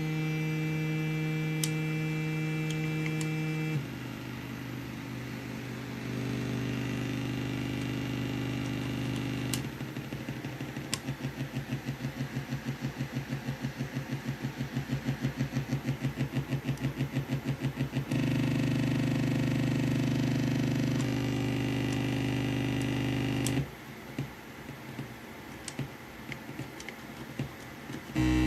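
Homemade shift-register tone generator giving a buzzy, stepped-waveform tone, its pitch jumping to a new steady note every few seconds as the clock rate is changed. Midway the tone pulses in a fast wobble, about five times a second, for several seconds; near the end it falls to a faint hum with a few clicks before a loud tone returns.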